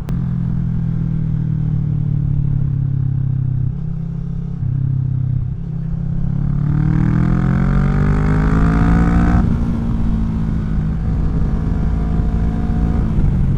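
2017 Kawasaki Vulcan 650 S parallel-twin engine through a CS Racing aftermarket exhaust, heard from the rider's seat. It runs steadily with two brief dips in the first half, then accelerates hard with a rising pitch. The pitch drops suddenly at a gear change about two-thirds of the way through, and the engine pulls on in the next gear.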